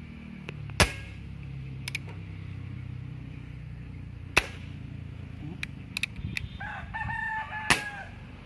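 PX100 Achilles PCP air rifle fired three times through a homemade pipe silencer: three short, sharp cracks about three and a half seconds apart, with lighter clicks between them. A rooster crows near the end, across the third shot.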